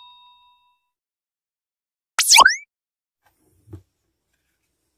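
A ringing ding fades out, then about two seconds in comes a short, loud sound effect of fast sweeping pitch glides, falling and rising, lasting under half a second. A faint soft knock follows about a second later.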